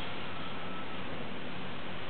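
Strong wind blowing over plastic sheeting: a steady, even rushing noise with no separate flaps or knocks.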